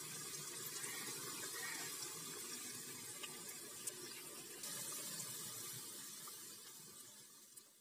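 Potato pakoras deep-frying in hot ghee in a metal wok: a steady sizzle with a few small crackles, fading away over the last couple of seconds.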